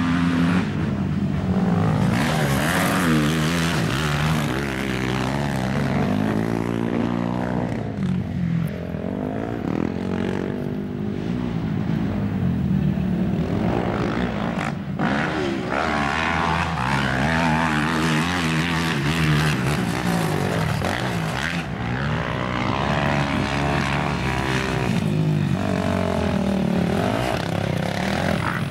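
Racing quad bike engines revving hard and backing off, their pitch rising and falling again and again with throttle and gear changes, more than one engine at once.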